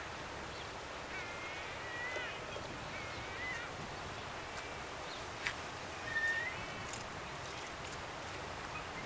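Birds calling: short wavering cries, several in a row, over a steady background hiss. One sharp click comes about five and a half seconds in.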